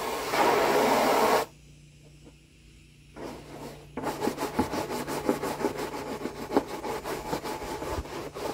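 Water from a garden hose running into a plastic pool, cutting off abruptly about a second and a half in. After a short pause, a scrub brush scrubs the plastic pool in quick, repeated strokes, scouring off green algae with vinegar and water.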